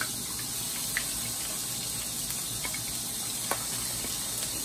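Battered fish pieces sizzling as they deep-fry in hot oil in a frying pan: a steady hiss with a few sharp pops.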